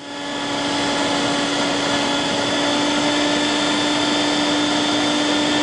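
Table-mounted router spinning a quarter-inch slot-cutting bit, running steadily with a constant hum as it cuts a slot into the inside face of a curved wooden apron.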